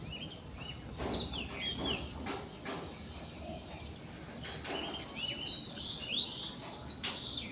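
Small birds chirping and twittering: many short notes that slide up and down, overlapping, and thickest from about halfway through.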